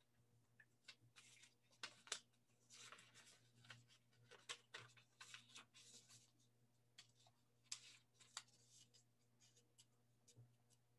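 Near silence, with faint scratchy rustling and scattered small clicks, as of writing or handling things close to the microphone, over a faint steady hum.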